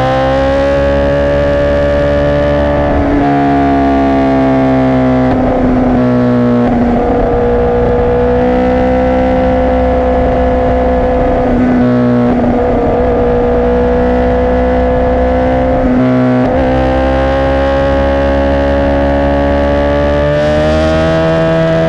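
2017 Honda CBR1000RR Fireblade's inline-four engine through a Racefit exhaust, running at high revs with its pitch slowly climbing and levelling off, and several brief breaks in the note.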